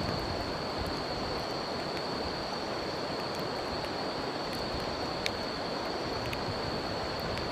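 A river flowing steadily, with insects trilling on one continuous high note and a few sharp crackles from a wood campfire, the loudest about five seconds in.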